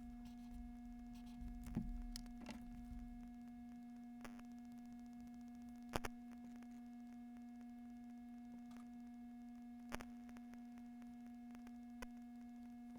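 A steady electrical-sounding hum, a low tone with a fainter higher tone above it, with a few faint clicks or taps; the sharpest click comes about six seconds in.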